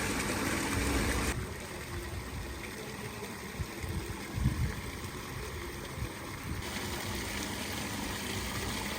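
Steady outdoor background noise with a low, even mechanical hum like idling engines; its tone shifts about a second in and again past the middle.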